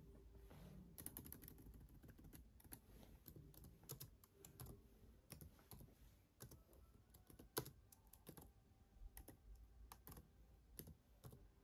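Faint typing on a laptop keyboard: irregular keystrokes, with one sharper click about seven and a half seconds in.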